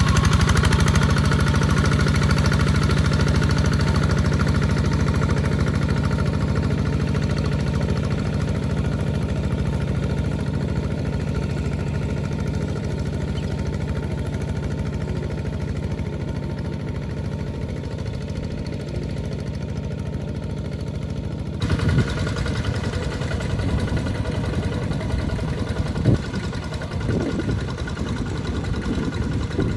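Engine of a two-wheel walking tractor running steadily while plowing a wet paddy field. About two-thirds of the way in, the sound changes abruptly to a rougher, uneven engine noise with a few sharp knocks.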